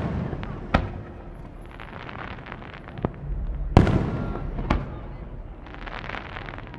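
Aerial firework shells bursting in a sequence of sharp bangs. One comes under a second in, the loudest a little past halfway and another about a second after that, each trailing off in a rumble, with fainter crackling between them.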